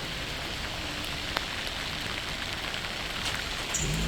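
Steady rain falling and pattering on surfaces, with a few sharper drops landing close by.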